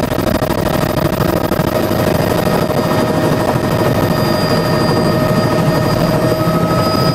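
Helicopter running on the ground, heard from inside the cabin: a loud, steady rapid chop from the rotor with a steady high whine over it.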